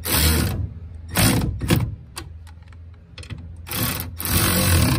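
Cordless electric ratchet spinning down the 9/16-inch nuts on a truck camper tie-down bracket, in three short runs with the last and longest near the end, and small clicks of the tool and hardware between them.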